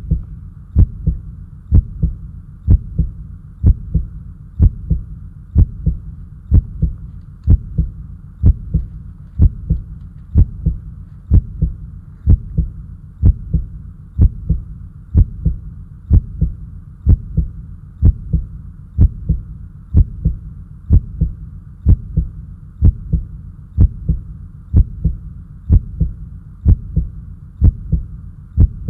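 Heartbeat sound effect: a steady, loud double thump about once a second, with a faint steady hum underneath.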